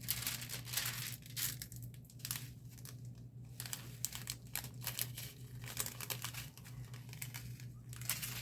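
Small plastic bags of diamond-painting gems being handled, crinkling irregularly throughout, over a faint steady low hum.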